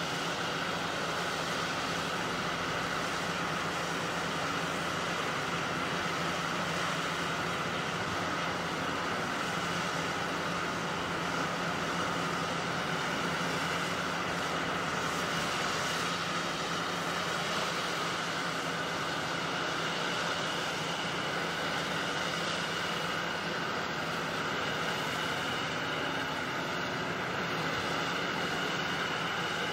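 Heavy demolition excavator running steadily, its diesel engine and hydraulics a constant drone with an unchanging whine and no distinct crunches or impacts.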